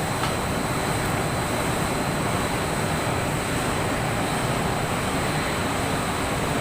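Electric arc welding: the arc giving off a steady, even hiss that holds without a break.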